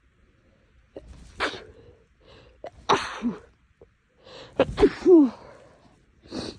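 A woman sneezing several times in a row, starting about a second in: sharp, noisy bursts with short voiced endings, the loudest pair near the middle and a fainter one at the end. The fit of sneezes comes from an itchy, tickly nose.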